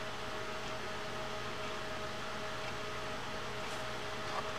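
Room tone: a steady hum and hiss with faint steady tones underneath, and no clicks or handling sounds standing out.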